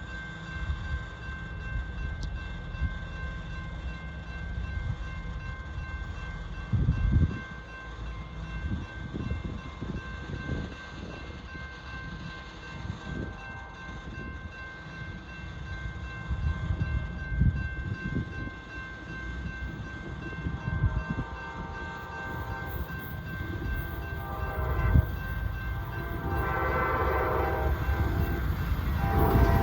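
Approaching Amtrak passenger train sounding its horn: a chord that rises out of the background about three-quarters of the way through and turns loud at the very end, over a low, gusty rumble.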